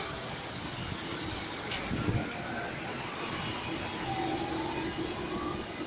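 Traffic driving through a flooded street, tyres washing through standing water over a steady hiss. A faint siren wails, falling and rising, in the second half.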